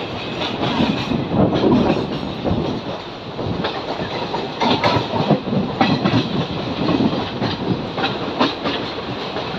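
Passenger express train running on track, heard from beside the coach, with its wheels clattering in an irregular string of clicks and knocks over rail joints and points.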